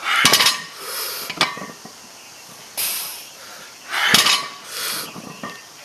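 Metal clinks and knocks from a loaded 315 lb barbell's plates and bar as it is gripped and shifted between deadlift reps, sharpest about a quarter second in, again just after a second, and about four seconds in. Between the clinks there are hard breaths every second or two.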